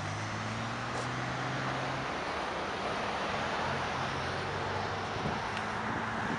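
Road traffic going by: a steady rushing hum of vehicles with a low engine drone that drops away about two seconds in and comes back in the middle.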